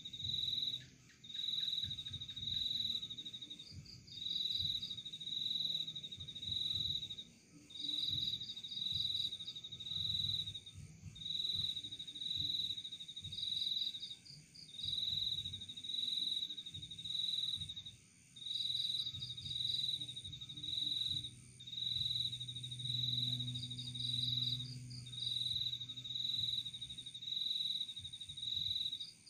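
Crickets chirping steadily in pulsing bursts about a second long, with a higher, faster trill every five seconds or so. A low hum sounds for a few seconds in the second half.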